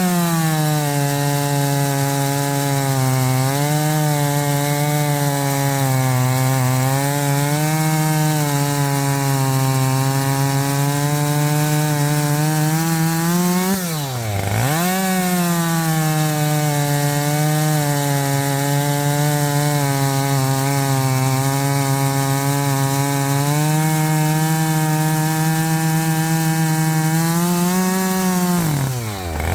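Husqvarna 545 50cc two-stroke chainsaw at full throttle, cutting through a log. The engine pitch wavers as the chain loads in the wood. About halfway through, the engine drops sharply and then revs back up, and it drops again at the very end. The chain is not fresh, dulled naturally by use, but it still cuts fast.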